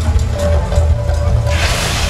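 Loud show music with heavy, pulsing low drumming over outdoor loudspeakers. About one and a half seconds in, a loud hissing rush starts as the volcano's fire effect bursts into a large fireball.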